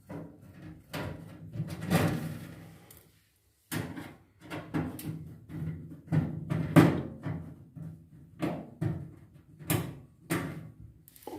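Irregular knocks, clicks and scrapes from the back panel of an automatic washing machine being unscrewed with a screwdriver and handled, with short pauses between. The sharpest knock comes about seven seconds in.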